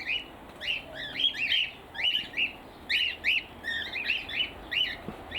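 Cockatiels calling over and over in short chirps that rise and fall, a few each second, at times overlapping.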